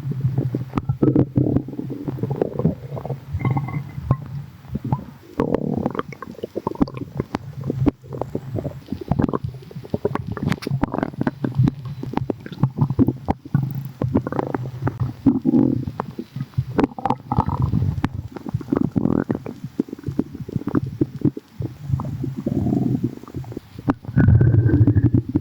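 Human stomach rumbling: continuous gurgling and bubbling with many small pops, swelling louder near the end.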